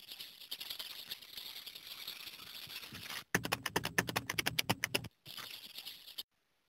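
Logo-animation sound effect: a scratchy, hissing rustle, then a fast rattle of clicks at about ten a second from about three seconds in to five. The rustle comes back briefly and cuts off suddenly shortly before the end.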